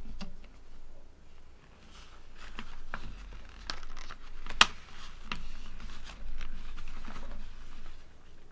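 Handling noise of a paper diary and its notebook cover as an elastic cord is threaded through the pages: paper rustling and rubbing with scattered light clicks, and one sharp snap about four and a half seconds in.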